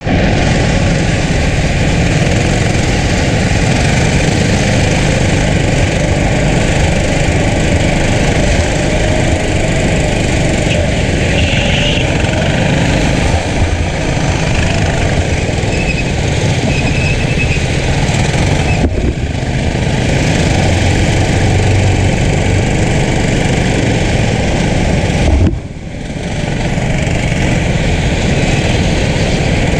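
Go-kart engine running hard under power, picked up by an onboard camera on the kart, mixed with the noise of wind and other karts close by. The sound drops briefly about 25 seconds in, then builds back up.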